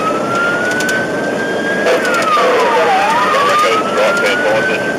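Fire truck siren wailing: its pitch drops over about a second, about two seconds in, then climbs slowly back up and holds, over the steady noise of the truck driving.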